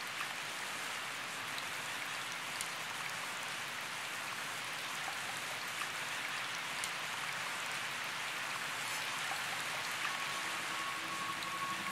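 Steady rain falling, an even hiss with a few faint drop ticks. A soft sustained music note comes in near the end.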